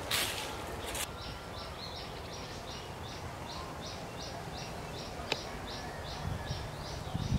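A rustling, scraping burst in the first second as a hoe strikes leaf-littered ground, then a high chirp repeated evenly, about three times a second, over steady outdoor background noise.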